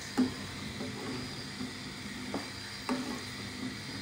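A metal spoon stirring carrots, peas and potato pieces in an aluminium pot of hot water, knocking against the pot a few times, over a steady hiss.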